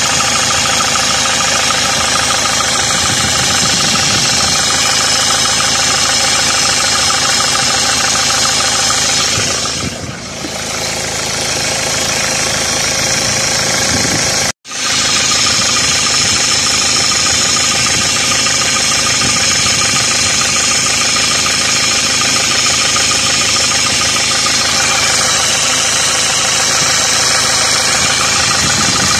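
Renault Clio 4 engine running steadily with the annoying noise it is being diagnosed for. The sound dips briefly about ten seconds in and cuts out for an instant near the middle.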